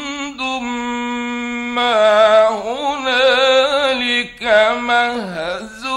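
A male Quran reciter's voice in slow, melodic recitation, holding long ornamented notes, with a brief breath about four seconds in.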